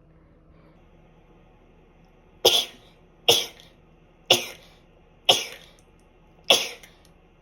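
A person sneezing repeatedly in a fit, five short sharp sneezes about a second apart, starting about two and a half seconds in.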